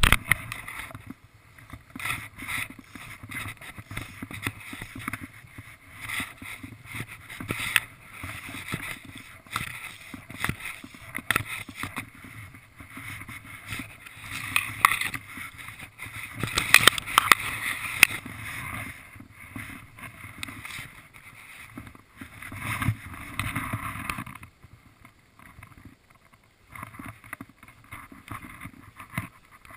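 Water lapping and gurgling around a small fishing boat, with irregular rustles and knocks from handling the fly rod and line close to the microphone.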